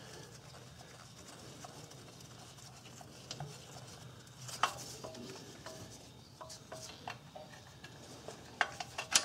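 Faint metal handling and scraping as bolts are threaded by hand into an exhaust bracket, with a few small clicks. Near the end comes a quick run of clicks as a wrench goes onto the bolt.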